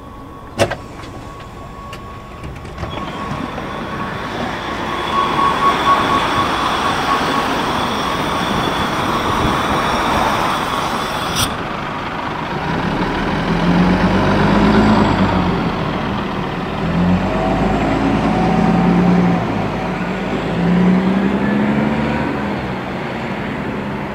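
Scania L94UB city bus with a ZF automatic gearbox running at a stop with a steady hiss that cuts off sharply about halfway. It then pulls away: the diesel engine note rises and drops back three times as the gearbox shifts up.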